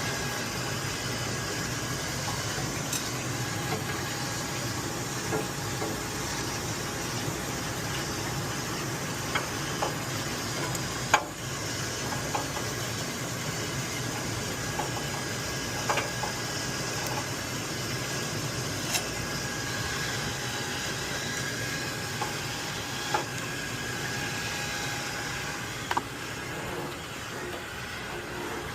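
Steady mechanical hum and hiss of running equipment, broken by about a dozen short sharp knocks and clinks, the loudest a little before the middle.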